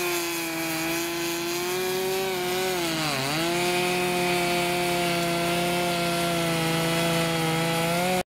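Chainsaw running at high revs, cutting through a log. Its pitch sags briefly about three seconds in, then holds steady until the sound cuts off suddenly near the end.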